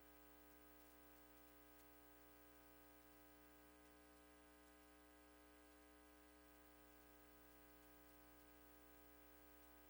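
Near silence: a faint, steady electrical hum and hiss on the audio line.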